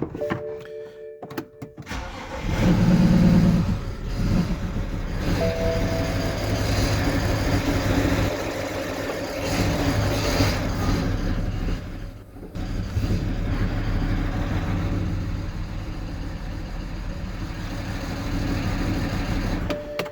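Car engine cranking and catching about two seconds in, then running; the owner blames its running on bad injectors. About twelve seconds in the sound drops out briefly, then the engine runs on. Steady electronic chime tones, like a dashboard warning, sound before the engine starts and again at the end.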